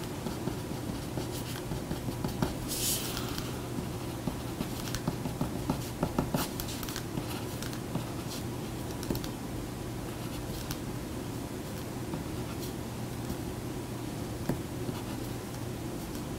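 A pen scratching on paper in short strokes as figures are written out by hand, with faint scattered ticks, over a steady low room hum.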